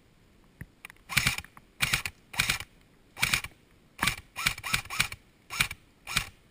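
Airsoft rifle firing about ten single shots at an uneven pace, one to three a second, each a short sharp snap.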